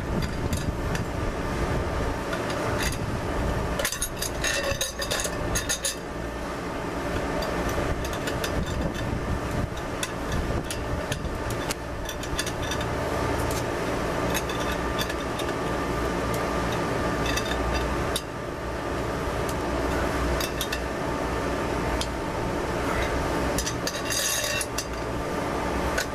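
Wrench and nuts clinking on steel all-thread rods and washers as the nuts are tightened down on a homemade shock-spring compressor. There are scattered sharp metallic clicks, with quick runs of clinks about four seconds in and near the end, over a steady background rumble.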